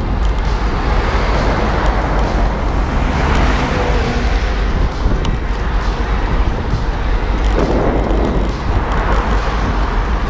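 Wind buffeting a moving bicycle-mounted camera's microphone, a constant low rumble, with road traffic passing. Tyre and engine noise swells and fades twice, the second time as a car overtakes close by near the end.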